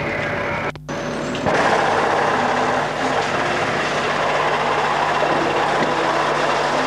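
Truck engine running: a steady low hum under a broad, noisy rush. The sound drops out briefly less than a second in and comes back louder about a second and a half in.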